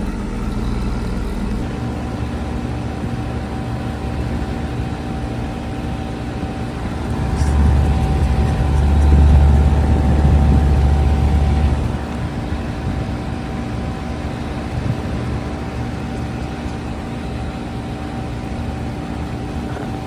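Outdoor heat pump unit running in heat mode: a steady hum from the compressor and fan, with a few held tones. About halfway through, a louder low rumble swells for roughly four seconds, then settles back.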